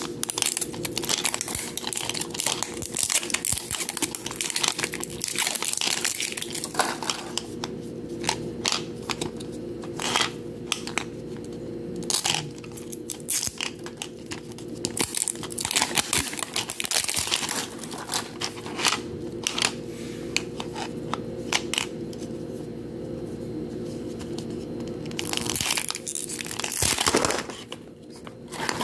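Thin plastic wrapping being peeled and torn off a plastic toy capsule ball, crinkling and crackling throughout, with a louder burst of crackling near the end as the capsule is opened.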